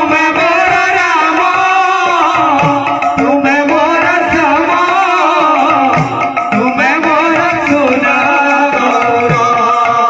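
Devotional kirtan music: a double-headed barrel drum beaten by hand in a quick, busy rhythm under a sung melody.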